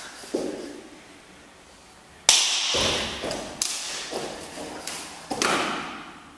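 Body percussion: a string of sharp slaps, claps and foot stomps on a wooden floor, irregularly spaced, the loudest a crack about two seconds in, each hit ringing on in a large room.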